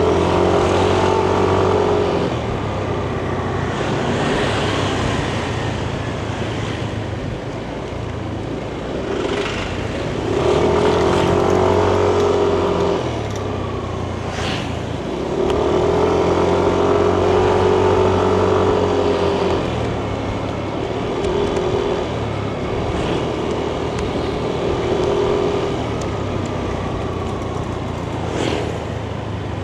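Yamaha NMAX 155 scooter's single-cylinder engine running on the road: it pulls at a nearly steady pitch in several stretches of throttle, as the CVT holds the revs, and eases off in between. Road and wind noise run underneath.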